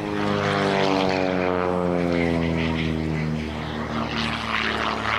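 An aerobatic biplane's piston engine and propeller passing by. The engine note falls steadily in pitch over the first few seconds, then the plane carries on loud before starting to fade at the end.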